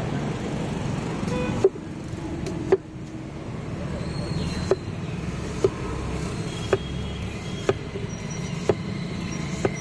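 Knife chopping watermelon onto a cutting board: sharp knocks about once a second, over steady street traffic noise.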